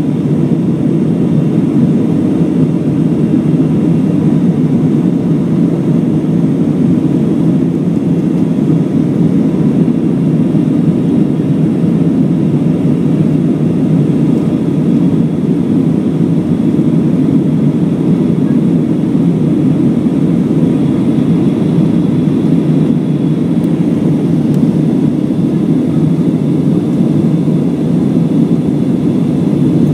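Steady cabin noise of an Airbus A319 airliner in flight, heard from inside the cabin: a constant deep rush of jet engines and airflow that holds at one level throughout, with a faint steady whine above it.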